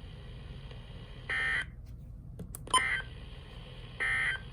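Emergency Alert System end-of-message data tones: three short, buzzy digital bursts of about a third of a second each, roughly a second and a quarter apart, sent over weather-radio audio with a steady low background hum. They mark the end of the broadcast warning.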